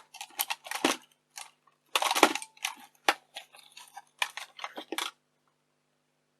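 Small plastic and metal camcorder parts clicking, knocking and scraping as the casing and modules are handled and pulled apart, with a longer scrape about two seconds in; the handling stops after about five seconds.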